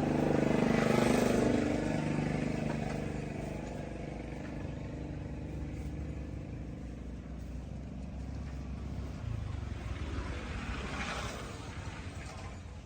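Motor vehicle engine running, loudest in the first two seconds, then fading to a lower steady hum.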